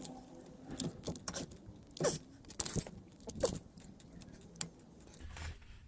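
Irregular metallic clicks, clinks and scrapes of hand tools and brake parts being worked while a replacement brake caliper is fitted on a car.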